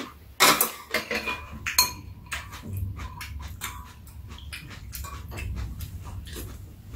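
Metal spoons and chopsticks clinking and scraping against ceramic soup bowls while eating: a run of small quick clicks, with a few louder knocks in the first two seconds, some leaving a short ring.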